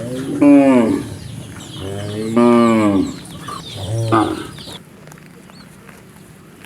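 Cow mooing three times, two long moos and a shorter third.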